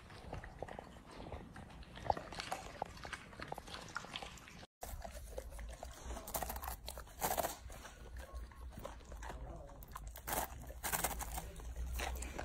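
Golden retriever chewing, with small irregular bites and clicks; after a brief dropout, a golden retriever crunching a dry block of instant noodles in irregular crisp crunches.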